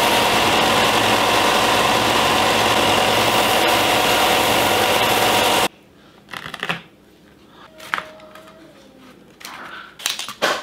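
A small electric motor runs steadily and loudly, then cuts off suddenly about five and a half seconds in. After that, a few light knocks and clicks come as rivets are set in a leather axe sheath.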